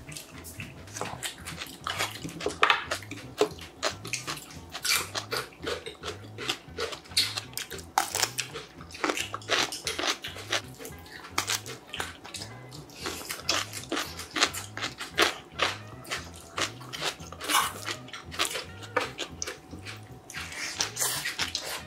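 Close-miked eating: a steady run of short, crisp crunches and wet chewing as radish kimchi and mouthfuls of bibimbap are bitten and chewed.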